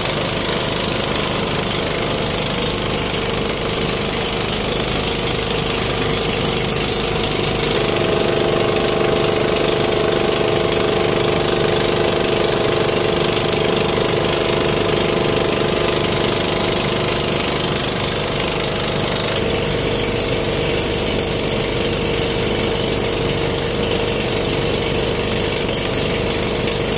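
Engine of a motorised outrigger boat running steadily under way, with a steady hum that grows a little stronger about eight seconds in, over the rush of wind and water.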